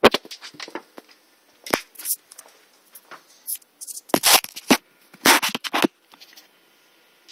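Handling noise of a hand-held phone being carried and set in place: fingers and hard surfaces rubbing, scraping and knocking against it in four short bursts of clicks and scrapes.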